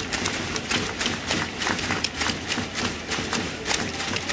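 Stadium crowd clapping in a fast, steady rhythm, about four to five claps a second, over a general crowd din.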